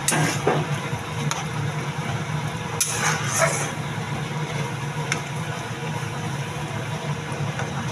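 Steady low hum, with a few brief scrapes of a steel spatula stirring simmering saag curry in a kadhai.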